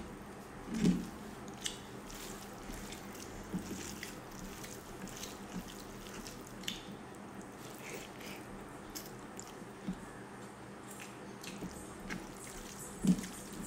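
Wet, sticky squelching of fingers mixing and squeezing rice with fish curry on a plate, with scattered small clicks and lip-smacking of eating. Two louder dull thumps, about a second in and near the end.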